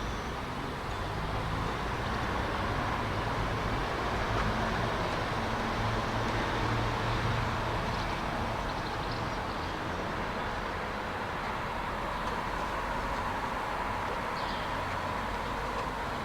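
A train running steadily: a continuous low rumble with a faint, slowly wavering whine over it.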